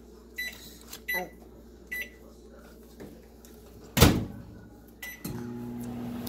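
Microwave oven being started: three short keypad beeps, a loud thump about four seconds in, another beep, then the oven starts running with a steady hum.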